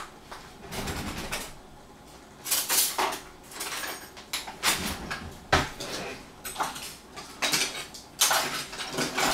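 Kitchen clatter: dishes and metal utensils clinking, knocking and scraping in irregular bursts, with several sharp clicks.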